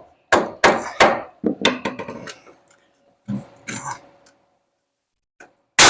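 Hammer blows driving nails into wood framing: a quick run of about six sharp strikes in the first two seconds, then a few softer knocks. Near the end there is a loud, noisy burst lasting about half a second.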